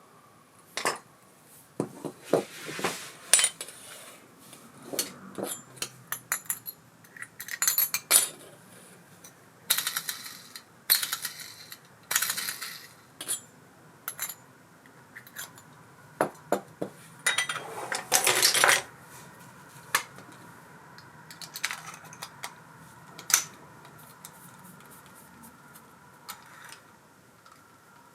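Small metal parts of an Abu Garcia Ambassadeur 5500C baitcasting reel clinking and clicking as they are handled during repair work. The clicks come at irregular intervals, with a few short rattles mixed in.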